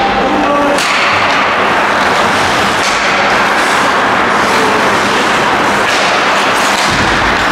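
Steady loud rush of noise from an ice hockey rink during play, with a few sharp knocks.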